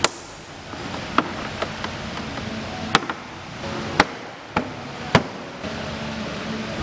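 Stiff plastic fairing clips on a Honda PCX 160 popping loose one after another as the front panel is pried off with a plastic trim tool: several sharp snaps, the loudest about a second apart.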